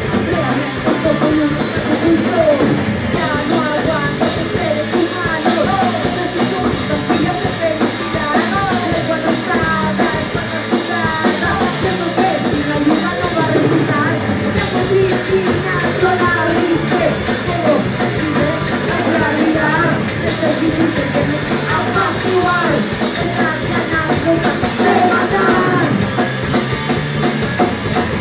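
A punk rock band playing live at full volume: electric guitars, bass and a Tama drum kit driving along, with a female lead singer on the microphone over the top.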